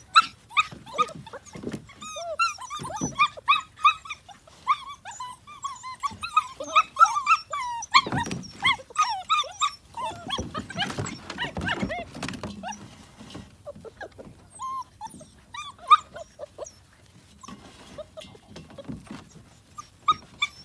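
Six-week-old puppies crying and squealing as they eat, many short high whines overlapping at once, among scattered clicks and smacks of feeding. The cries are thick for the first ten seconds or so, then thin out to a few.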